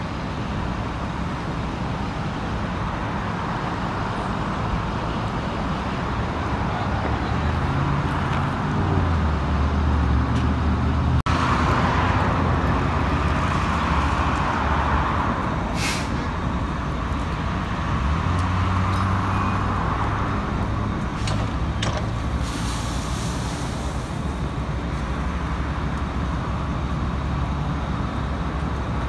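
A large vehicle's engine running steadily, with the rushing hiss of a fire hose stream on the truck through the middle stretch. A couple of short, sharp hisses of air come later.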